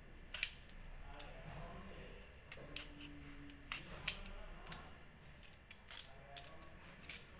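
A blade peeling the skin off a raw green mango, heard as short, sharp scraping strokes at an uneven pace, about eight in all.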